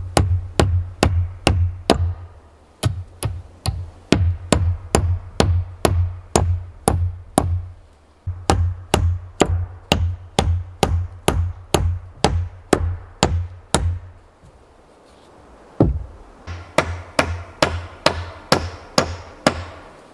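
A hammer striking wood in steady runs of blows, about two to three a second, each with a deep thud, and a few short pauses between runs. This is typical of nails being driven into timber.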